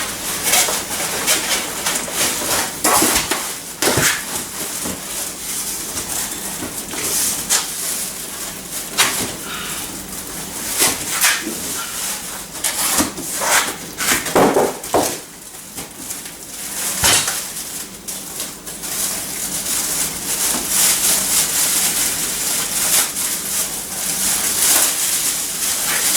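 Cardboard box and packing material being handled as a bench grinder is unpacked: irregular rustling, scraping and knocks, with a few louder bumps about 4, 11 and 14–15 seconds in.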